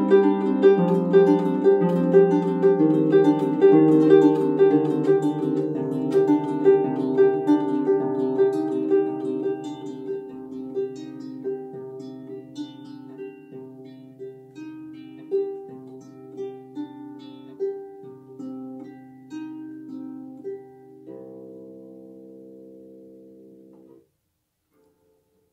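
Lever harp played solo: plucked notes grow sparser and quieter as the piece ends. A last chord rings and is then stopped short as the player's palms damp the strings.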